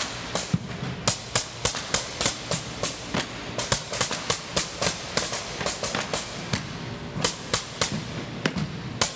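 Rubber mallet striking a pneumatic flooring nailer, driving nails into hardwood strip flooring: sharp bangs in a quick, steady rhythm of about three a second.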